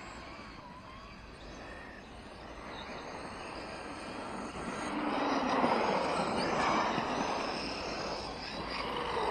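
Radio-controlled off-road trucks racing on a dirt track: motor whine and tyre and dirt noise that swells as the trucks come close, loudest about five to seven seconds in and rising again near the end.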